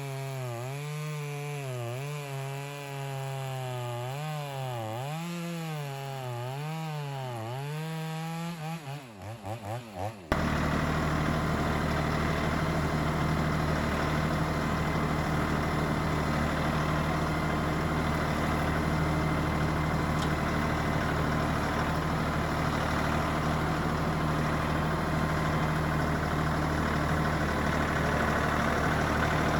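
Stihl MS 290 two-stroke chainsaw bucking a log, its revs rising and falling about once a second. About ten seconds in, the sound cuts off abruptly to a louder engine running steadily at constant speed.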